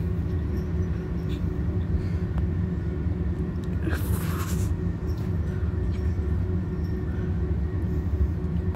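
A steady low hum, with a short hiss about four seconds in.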